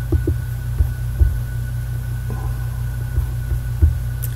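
Steady low electrical hum, with a few irregular soft low thumps over it.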